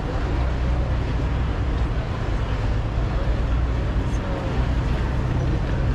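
A vaporetto water bus's diesel engine running with a steady low hum.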